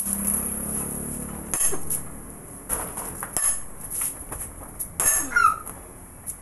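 A handful of sharp metallic clinks and knocks, irregularly spaced, from steel tools and parts striking a truck steering knuckle while its kingpin is being replaced.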